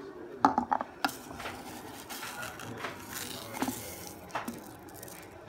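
Kitchen handling sounds: a quick run of sharp clinks and knocks of cookware in the first second, a short rustling hiss in the middle, and a couple more knocks near the end.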